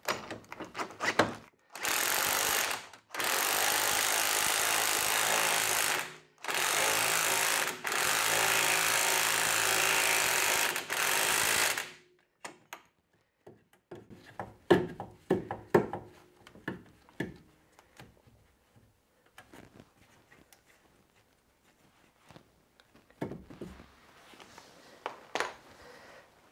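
Impact wrench running in three bursts, about one, three and five and a half seconds long, driving the threaded spindle of an internal coil spring compressor to compress a car's rear coil spring. After that come scattered clicks and knocks of the tool and compressor being handled.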